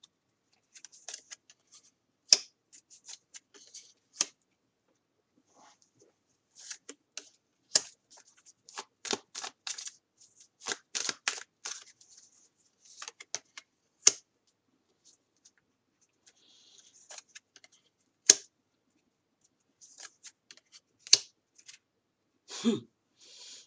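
Tarot cards being handled and laid out on a table: irregular crisp clicks and short rustling slides of card stock, with a few sharper snaps as cards are set down.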